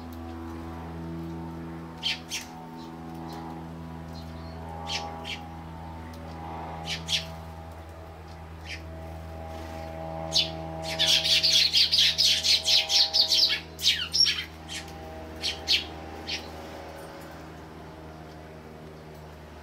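Eurasian tree sparrows chirping: scattered single chirps, then a fast run of chirps lasting about three seconds past the middle, over a steady low hum.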